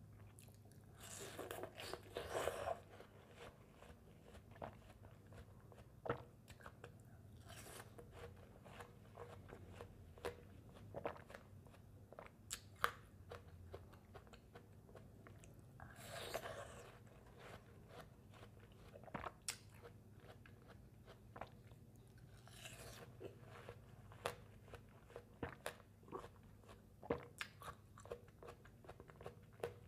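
Close-miked bites into watermelon slices, a few juicy crunches several seconds apart, with wet chewing and small mouth clicks in between.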